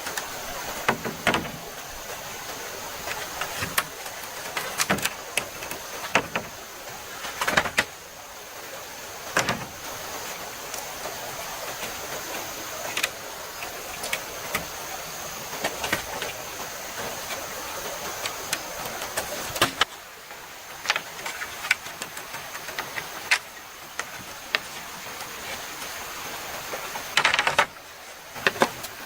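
Steady rushing of a stream with a thin, high, steady insect-like tone, broken by sharp knocks and taps at irregular intervals, a cluster of them near the end.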